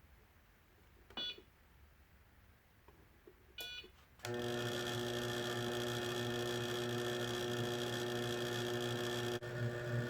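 Electric motor of a homemade wood lathe starting up abruptly and running with a steady hum; near the end the hum begins to pulse and waver. Two brief high-pitched blips come before it starts.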